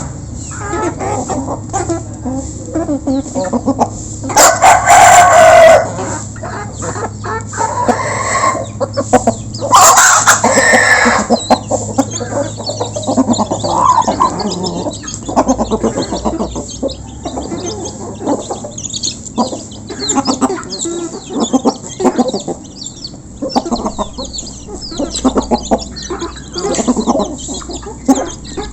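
A flock of village chickens clucking steadily while being fed, with a rooster crowing twice, about four and ten seconds in; the crows are the loudest sounds.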